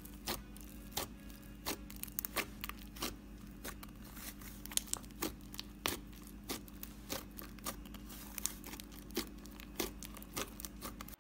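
Black butter slime being pressed and kneaded by fingers, giving a run of irregular sharp clicks and crackles, roughly two or three a second.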